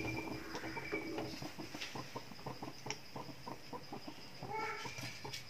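Hot oil sizzling in a frying pan with many quick, light crackles as breaded egg halves deep-fry.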